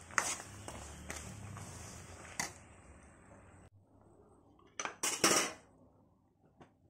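Spices and nuts frying in hot sesame oil in a pan, a steady sizzle with a few sharp clicks of a metal spoon against the pan. The sizzle drops away abruptly about four seconds in, and a couple of short metal clatters of spoon and bowl follow about a second later.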